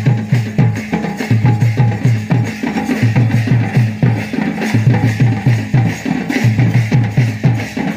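Music for the Dhimsa tribal dance: deep drum beats about four a second in repeating phrases broken by short pauses, over a steady low tone.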